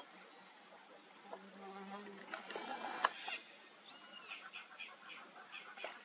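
Wild insects buzzing and birds chirping, with a brief low pitched call about a second in, a brighter burst with a sharp click around three seconds, and a short curving bird call about four seconds in.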